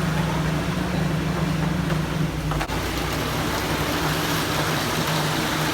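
Engine of road-construction machinery running steadily during concrete pouring, with a short break about two and a half seconds in.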